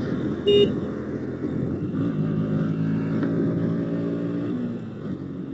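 Motorcycle engine running steadily under way, its pitch lifting a little about two seconds in. A short horn beep sounds about half a second in.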